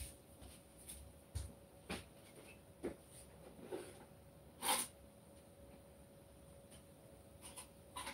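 Faint scattered rustles and light knocks, with one louder short noise about halfway through, over a faint steady hum.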